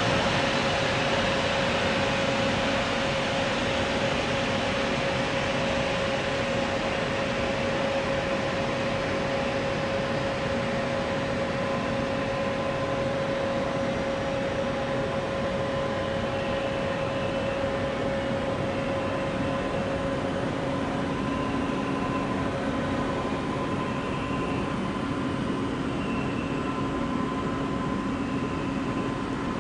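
Jet turbine noise from a Japan Airlines Boeing 737-800 parked at the gate: a steady rushing hiss with a whine, slowly getting quieter.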